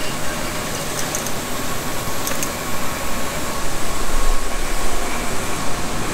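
Steady machinery noise with a thin, constant high whine and a few faint clicks.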